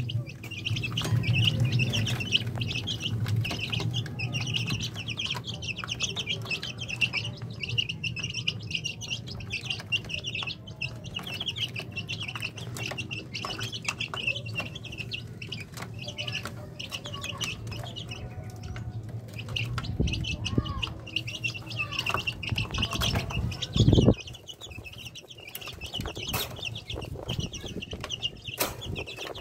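A crowd of kampung chicks peeping continuously in a high, busy chorus. A steady low hum runs beneath them until a loud brief knock about 24 seconds in, after which the hum stops.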